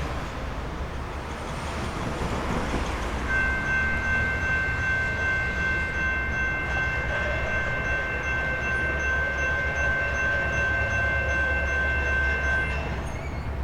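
Diesel freight locomotive's air horn sounding one long chord, held about nine and a half seconds, over the low rumble of the EMD SD70ACE locomotive and train.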